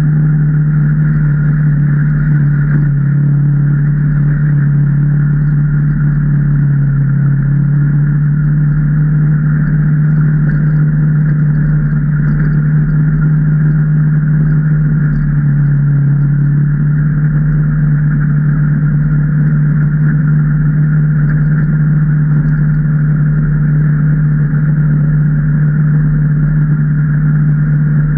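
Can-Am Maverick Trail 800 side-by-side's V-twin engine running at a nearly steady speed, a continuous low drone whose pitch dips slightly a couple of times.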